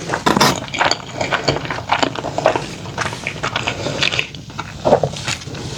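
Close-miked chewing and biting of a double butter burger: a dense run of irregular, quick mouth clicks.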